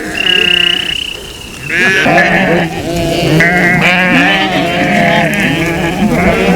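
A large flock of sheep bleating: one high, held bleat at the start, then from about two seconds in many bleats overlapping at once.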